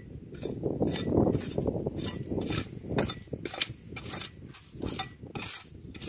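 Small metal hand rake scraping and clicking against rock and gravel while digging for clams in a rock crevice: an irregular string of sharp scrapes and clicks, about two a second, over a low grinding of stones.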